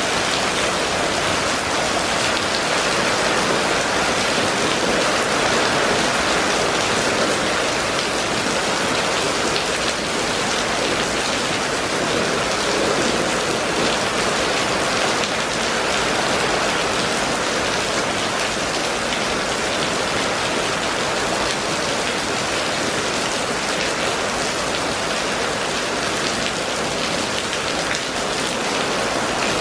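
Steady rain falling on a wet street covered in running water, an even hiss of drops with no other events.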